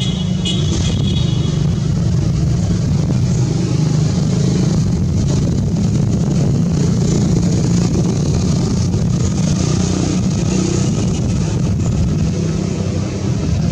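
Steady low engine rumble with no clear change, and a brief high chirp about half a second in.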